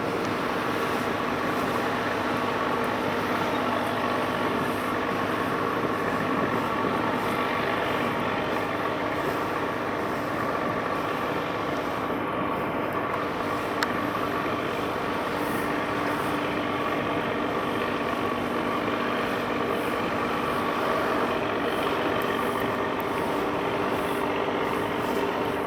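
Steady drone of heavy road traffic, a continuous mix of engine hum and tyre noise with no break.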